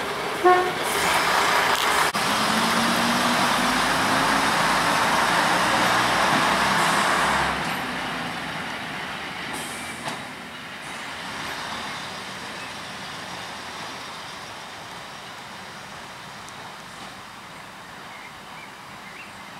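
A train going past with a loud rushing noise that starts suddenly about half a second in and lasts about seven seconds, then fades steadily away into the distance.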